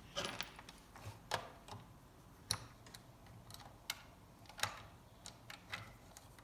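A screwdriver clicking and scraping against the screws and hard plastic of a Buzz Lightyear action figure's jetpack: about a dozen faint, sharp clicks at irregular intervals.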